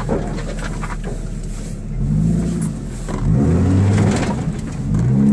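Dodge Ram pickup's engine revving in surges on a rough trail, pitch climbing about two seconds in, again a little after three seconds and near the end, heard from inside the cab.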